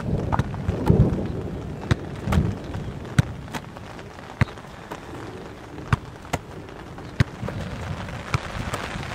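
Soccer ball repeatedly struck and caught: sharp thuds come about every half second to a second, over a steady low rumble.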